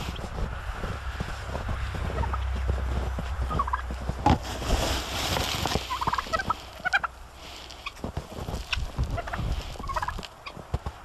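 Domestic turkeys gobbling repeatedly, short calls again and again, over a low steady rumble that stops about eight seconds in.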